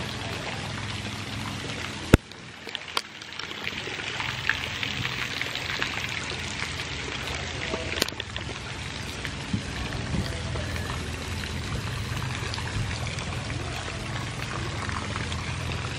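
Steady splashing of water from the pool's small fountain jets falling into the swimming pool, with one sharp click about two seconds in.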